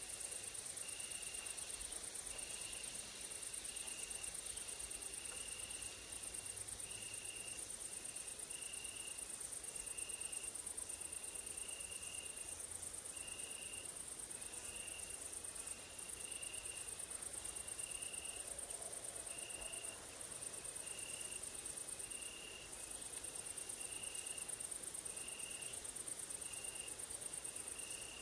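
Grasshoppers and crickets stridulating in summer woodland: a continuous high, fast-pulsed trill that breaks off briefly a few times, over a lower chirp repeating steadily about once a second.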